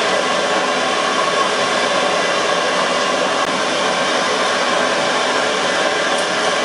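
Steady roaring hiss of a hawker stall's gas burner firing under the pot of boiling noodle water.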